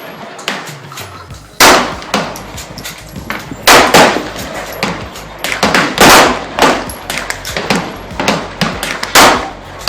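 Four loud gunshots about two to three seconds apart, each ringing out briefly, with fainter shots between them.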